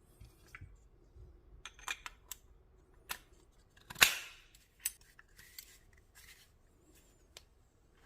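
Sharp metal clicks and clacks of AK rifle parts being handled and fitted, with one loud clack about four seconds in.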